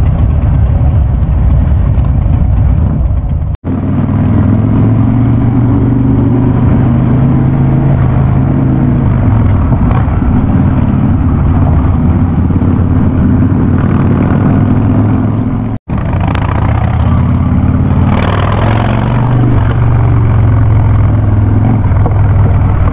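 Harley-Davidson Ultra Classic's V-twin running loud and deep through Vance & Hines Big Radius exhaust pipes. The sound cuts out abruptly for an instant twice, about four seconds in and again about sixteen seconds in.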